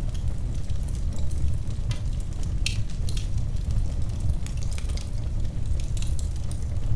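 Wood fire burning in a fireplace: a steady low rumble of the flames with irregular sharp crackles and pops, a few louder pops about three seconds in.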